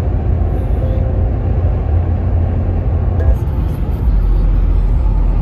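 Road noise inside a moving car's cabin: a steady low rumble of tyres and wind at highway speed. A faint click about three seconds in, and the rumble gets heavier about a second later.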